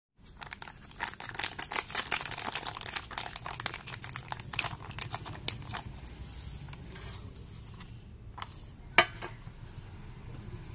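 Plastic Rinso liquid-detergent sachet crinkling as it is handled in the hands, dense crackling that thins out after about six seconds. A single sharp tap about nine seconds in.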